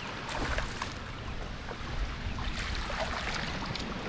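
Water sloshing and light splashing around a kayak, with wind buffeting the microphone and a few small knocks.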